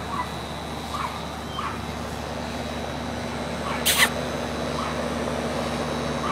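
A small dog giving short, high yips about once a second as it runs around, with a sharp scrape or knock about four seconds in.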